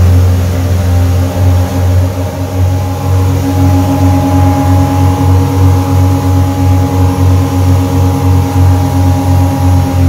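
Motorboat engine running steadily at speed, a loud low drone with a steady higher hum above it.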